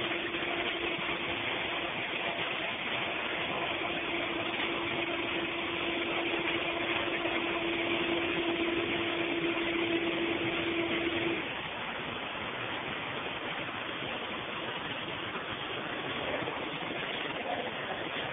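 Steady factory machinery noise, with a constant mid-pitched hum over it that cuts off suddenly about eleven seconds in.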